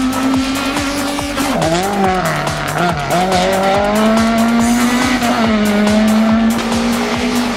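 Race car engine held at high revs, dropping briefly and climbing back about two and three seconds in, with music and a steady beat underneath.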